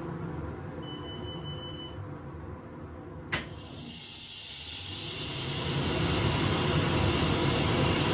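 Powder-coating booth extraction system running with a steady mechanical noise. A short electronic beep comes about a second in, and a sharp click a little after three seconds. A loud hiss then builds over about two seconds and holds.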